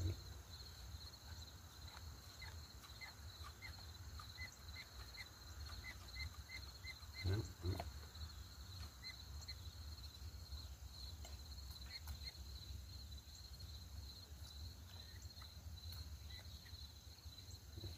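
Quiet background with a steady, high, pulsing insect trill throughout, plus a few faint clicks and one short low sound about seven and a half seconds in.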